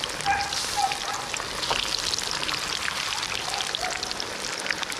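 Whole spice-coated fish deep-frying in a pan of hot oil: a steady crackling sizzle.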